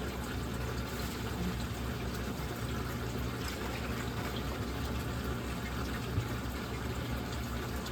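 Steady running of reef aquarium equipment: a low pump hum under a constant rush of moving water, with a faint tick or two.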